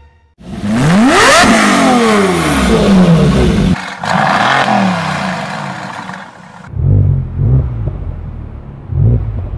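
Race car engine sounds: a car passes at speed with its pitch rising and then falling, a second pass follows with the pitch falling away, and two short, low engine revs come near the end.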